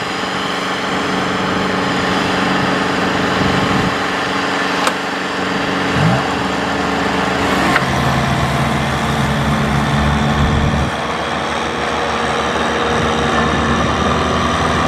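Diesel engines of a Kubota DC-70 combine harvester and a farm tractor running together under load as the combine tows the mud-stuck tractor by a chain. There is a brief sharp click about five seconds in, and the engine note deepens about eight seconds in.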